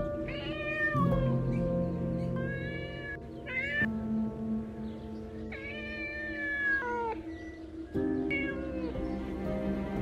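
Domestic cat meowing about five times: two long meows, near the start and past the middle, that fall in pitch at the end, and three shorter ones between and near the end. Soft background music with held notes plays underneath.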